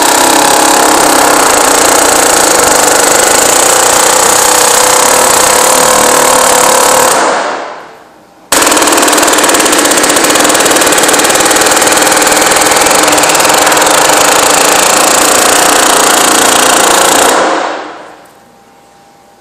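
Pneumatic air hammer running in two long runs of rapid hammering, driving the caulked edge of a filter cloth into the groove of a filter-press chamber plate. The first run dies away about seven seconds in, and the second starts abruptly about a second later and dies away near the end.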